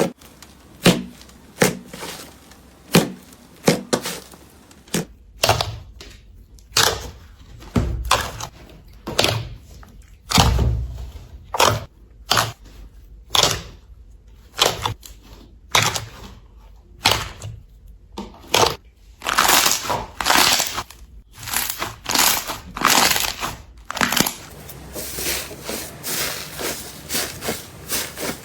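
Slime being squeezed and pressed by hand, making a run of sharp clicks, pops and crackles, about one a second at first and then quicker, denser crackling from about two-thirds of the way in.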